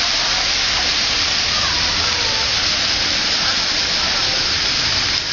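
Fountain water splashing into its basin: a steady, even rush.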